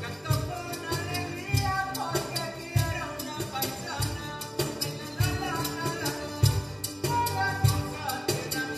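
Live acoustic son huasteco-style music: a strummed guitarra barroca and quinta huapanguera over a cajon and shakers. The strings play a quick, even strum, and the cajon marks the beat with deep thumps.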